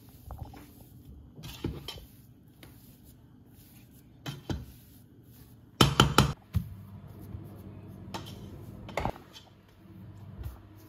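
Metal utensil working mashed potato and cheese in a metal cooking pot, scraping and knocking against the pot's sides, with a quick run of three or four loud knocks about six seconds in.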